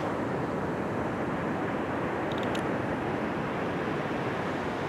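Steady roar of ocean surf, with a few faint clicks about halfway through.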